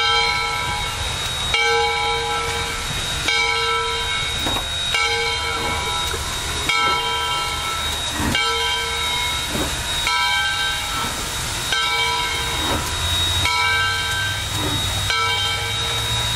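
A steam locomotive's bell ringing steadily, one stroke about every 1.7 seconds, over the low rumble and steam hiss of two steam locomotives slowly pulling a passenger train.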